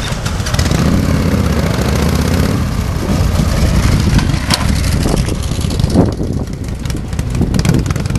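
Motorcycle engines running, with the engine pitch rising and falling between about one and three seconds in. There is a sharp click about four and a half seconds in.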